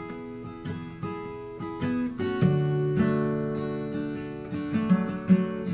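Acoustic guitar strummed and picked, chords ringing and changing every second or so: an instrumental passage between sung lines of a song.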